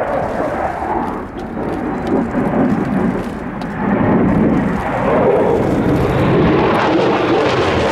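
Jet noise from a Boeing F/A-18F Super Hornet's twin turbofan engines as it flies its display, a loud continuous rumble. It fades a little about a second in and swells back up from about four seconds in.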